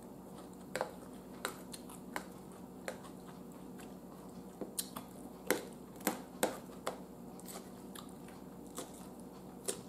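Chewing crunchy raw chopped salad: quiet, irregular sharp crunches, roughly one every half second to second, bunched together in the middle.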